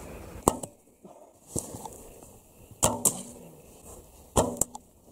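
Bow being shot three times, each a sharp snap of the released string: one about half a second in, one near three seconds and one near four and a half seconds. The later two are each followed a moment later by a second sharp knock.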